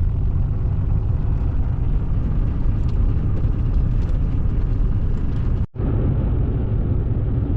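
Bobcat E40 mini excavator's diesel engine running steadily, heard as a low rumble from inside the cab, with a brief drop-out just before six seconds in.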